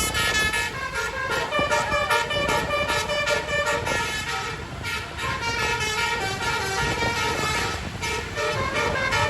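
Bus telolet horn, a Basuri multi-tone air horn, playing a fast melody as a rapid string of changing notes, over the low rumble of the bus engine.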